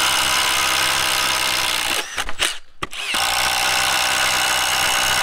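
Milwaukee M18 Fuel Gen 3 impact driver boring through a wooden board with a 1-inch paddle bit at full speed under load, its impact mechanism hammering steadily. It stops for about a second a little before the middle, then starts again on the next hole.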